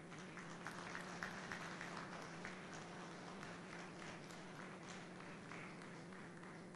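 Faint applause: many hands clapping irregularly, over a low steady hum.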